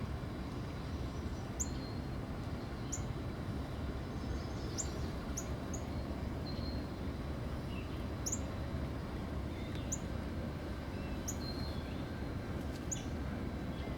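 Northern cardinal giving short, sharp, high chip calls that drop quickly in pitch, about nine of them at irregular intervals of one to two seconds, over a steady low background rumble.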